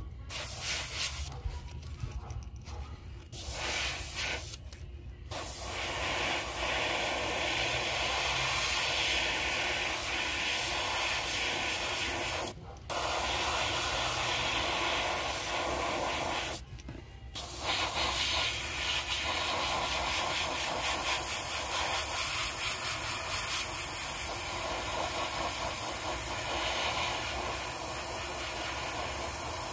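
Airbrush hissing as it sprays paint onto a crankbait, in long bursts broken by short pauses in the first half.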